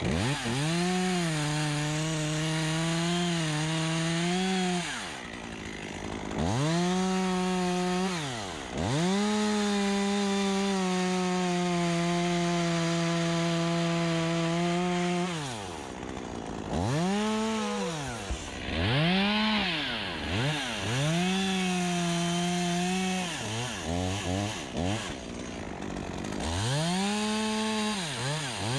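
Stihl two-stroke chainsaw cutting black poplar in repeated full-throttle bursts. The engine note climbs quickly to a high, held pitch, dips slightly under load, and falls back toward idle between cuts. The longest run lasts about seven seconds near the middle, and a few quick throttle blips come late.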